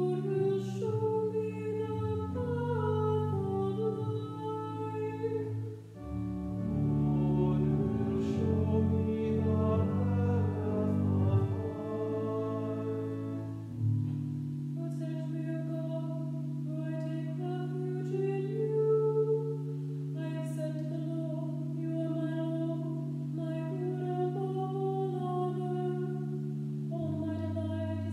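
Organ playing sustained chords with a moving melody line. About halfway through, a solo cantor's voice begins singing over long held organ chords.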